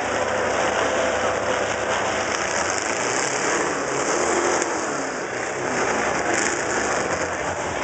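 Demolition-derby truck engine idling, heard from inside the cab, with a slow rise and fall in pitch around the middle.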